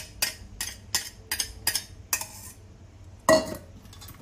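Metal chopsticks tapping and scraping against a small stainless steel bowl, a quick run of sharp clinks about three a second, as fermented bean curd sauce is scraped out of it. About three seconds in comes one louder metallic clank that rings briefly.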